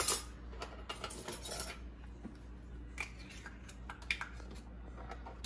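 A spoon scooping sour cream from its tub into a glass mixing bowl, with several short clicks and taps of the spoon against the bowl and tub.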